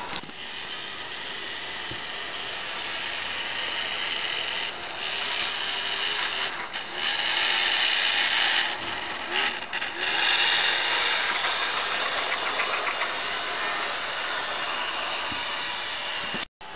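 HO-scale model train running on its track loop: the Athearn BNSF GP50 locomotive's small electric motor whirring, with the wheels running on the rails, getting louder as the locomotive and its cars pass close by from about five to eleven seconds in.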